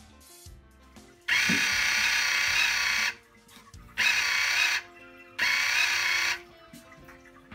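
Project Mc² H2O toy car giving three loud whirring bursts, the first about two seconds long and the others about a second each, as vapour puffs from its exhausts. Faint background music runs underneath.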